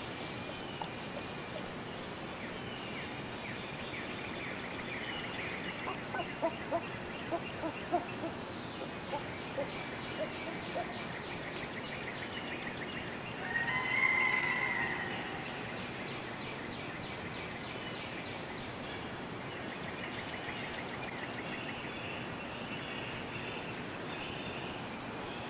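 Outdoor ambience with birds calling: a run of short calls about six to eleven seconds in, and one louder call about fourteen seconds in.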